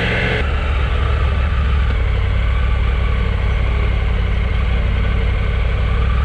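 Motorcycle engine running steadily at low revs with a low hum; a higher-pitched part of the sound drops away about half a second in.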